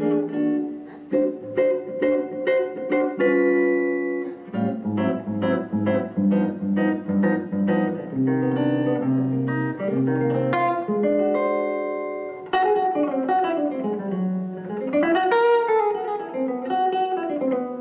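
Archtop electric guitar played solo, mixing chords with single-note lines. There are held low notes in the middle and quick runs up and down the neck near the end.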